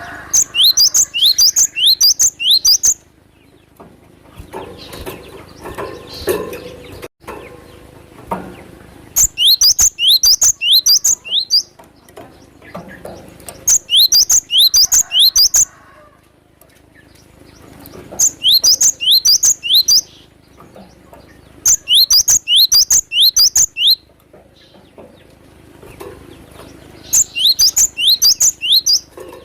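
Glatik batu (cinereous tit) calling: six bursts of about two seconds each, every burst a rapid run of sharp, steeply falling high notes, with short pauses between.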